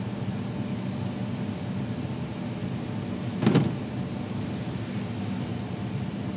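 Steady low hum of room noise, with one short dull thump a little past halfway.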